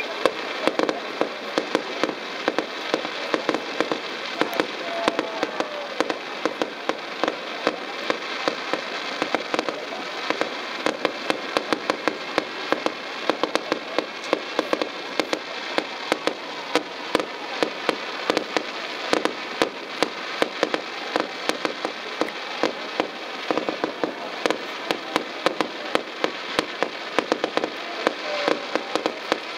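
Aerial fireworks going off: a dense, continuous crackle of many small pops, with frequent louder sharp reports standing out several times a second.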